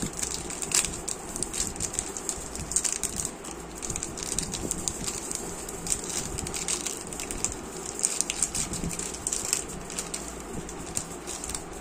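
Crinkling and rustling of a chocolate bar's foil-lined wrapper as hands peel it open, a stream of irregular crackles.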